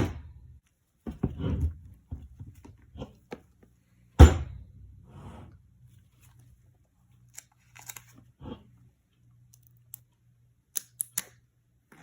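Packaging being handled on a table during an unboxing: a sharp knock at the start and a louder one about four seconds in, each followed by smaller taps and rustling, then a few quick clicks near the end.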